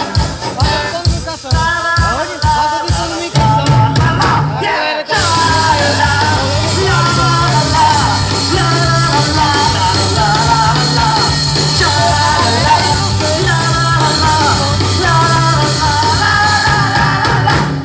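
Live rock band playing with a singer: steady drum hits under the vocal at first, then after a short break about five seconds in, the full band comes back in with held bass notes under the sung melody.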